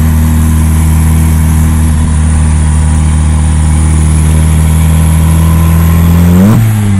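Turbocharged Ford Fiesta engine with a carburettor turbo setup, running at steady revs under load with a thin, high turbo whistle wavering above the engine note. About six and a half seconds in, the revs flare up briefly and then drop away, with the whistle falling as the throttle is lifted.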